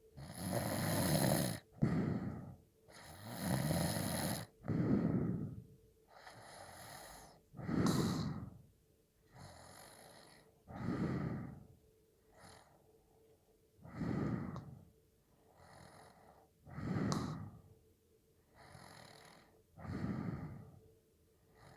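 A sleeping person snoring. The first five seconds hold several loud, snorting breaths close together. After that a loud rasping snore comes about every three seconds, with a fainter breath between each.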